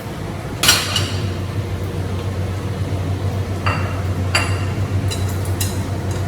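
Dishes and utensils clinking: one loud clatter about a second in, then several lighter clinks with a brief ring, over a steady low hum.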